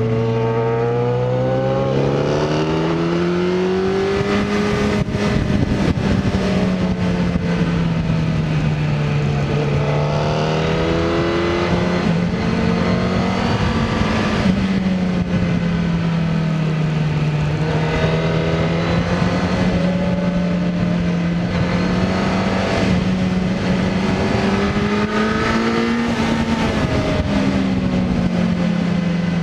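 Sport bike engine under way, its pitch rising and falling several times as the rider works the throttle through the curves, over a steady rush of wind and road noise.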